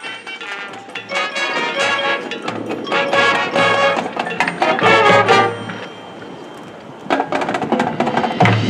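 Marching band playing loud brass chords over drum and percussion hits. About six seconds in it drops to a brief softer passage, then the full band comes back in loudly.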